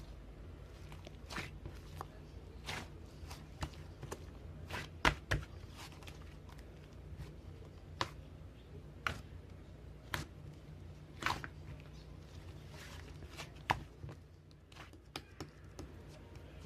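Slime being squeezed and poked by hand, giving irregular sharp pops and clicks about once a second over a low steady hum.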